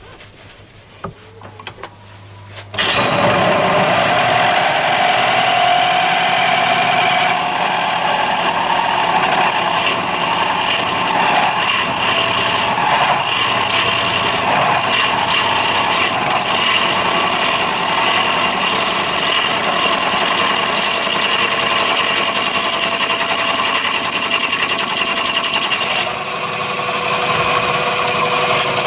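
Mini lathe switched on about three seconds in, then running with a steady machine whine from its motor and gearing while a drill bit in the tailstock chuck bores into a chromed brass workpiece. The level drops somewhat near the end.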